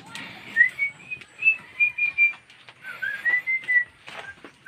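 A person whistling a short tune in two phrases of held notes, the second rising and then falling. Light clicks of tie wire being twisted around steel reinforcing bars with a hand hook tool come in between the notes.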